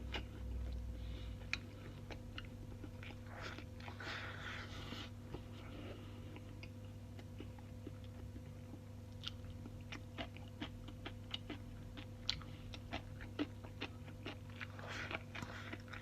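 Close-up sounds of a person eating rice and stewed tofu: wet chewing with many sharp smacks and clicks and a couple of brief louder bursts, over a steady low hum.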